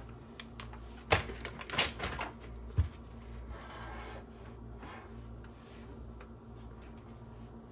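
Kitchen handling sounds: a plastic bag of shredded cheese crinkling, with a few sharp clicks, and a dull knock about three seconds in as the glass baking dish is shifted on its wooden board. Soft rustling follows as shredded cheese is pulled from the bag and sprinkled.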